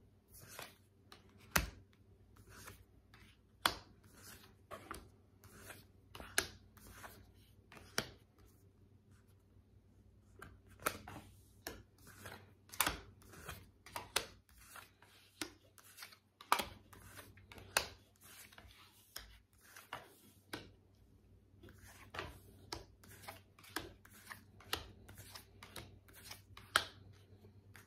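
A deck of tarot cards being shuffled by hand: an irregular run of soft card slaps and sharp clicks, about one or two a second, over a faint steady hum.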